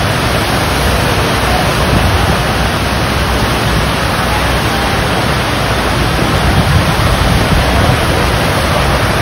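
Sheet-wave surf simulator: a thin, fast sheet of pumped water rushing steadily up the padded incline, a loud, even rush.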